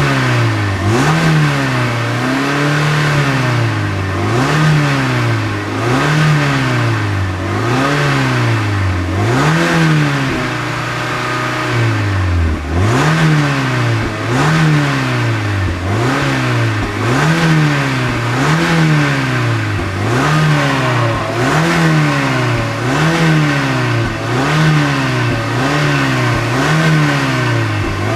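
Mazda MX-5's inline four-cylinder engine being revved in quick, repeated blips, the pitch rising and falling with each one, about one a second or so. It drops back briefly toward idle about halfway through, then the blips resume.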